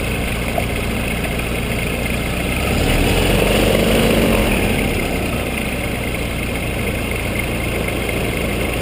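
Microlight trike's engine and pusher propeller running on the ground, swelling louder for a couple of seconds a few seconds in, then settling back to a steady run.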